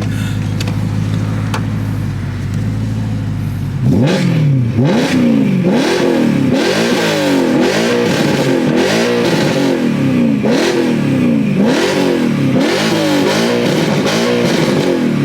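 BMW E92 M3's 4.0-litre V8 through a Meisterschaft aftermarket exhaust, idling steadily at first, then blipped over and over, about once a second, each rev rising and dropping back, before settling to idle near the end. Crazy loud.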